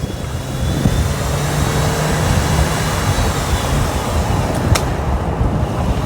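A 2019 Jaguar Land Rover vehicle running, with a steady low rumble and noise. A single sharp click about three-quarters of the way through.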